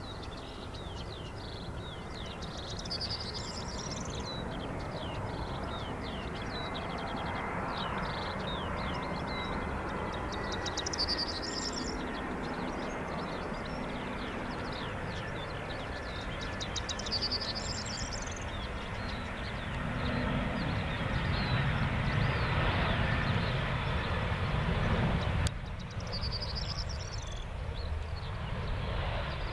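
Airbus A320 jet engines heard from beside the airfield as the airliner comes in on final approach and lands: a broad rumble and hiss with a faint high whine, growing louder to a peak near the end, then dropping suddenly. A small bird's short song phrases repeat every several seconds above it.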